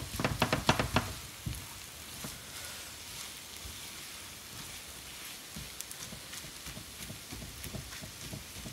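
Spatula chopping an egg fry in a frying pan: a quick run of knocks against the pan in the first second, then a faint steady sizzle with a few light taps.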